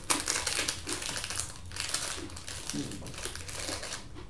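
Plastic wrapper of a packet of peanut butter Oreo cookies crinkling and crackling as it is handled and opened, in irregular clusters with short pauses.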